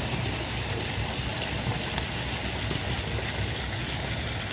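Steady rushing of moving swimming-pool water, with a low rumble underneath.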